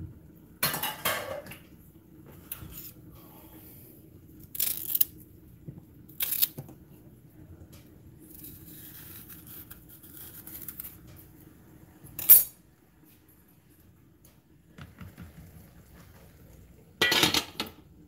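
A knife cutting the ends off green bananas on a granite countertop, with a handful of short knocks and scrapes. The sharpest knock comes about twelve seconds in, over a faint steady hum.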